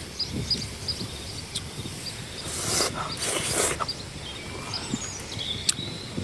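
Outdoor bush ambience with faint, evenly repeated high chirps from insects or birds, and a couple of loud scraping rustles around the middle.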